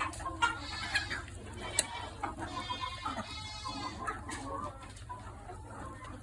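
Young turkeys calling with repeated high, seagull-like cries, with a few sharp taps among them; the calls fade after about four seconds.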